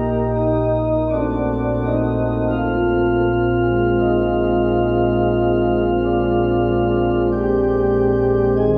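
Organ playing slow sustained chords over a held low bass note, the chords changing every second or few.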